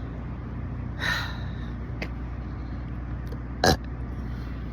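A person drawing a short, breathy gulp of air about a second in, then one short, sharp throat sound, the loudest thing here, a little after three and a half seconds, over a steady low hum.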